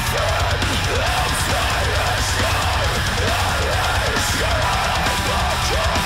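Background music with drums and a steady driving beat.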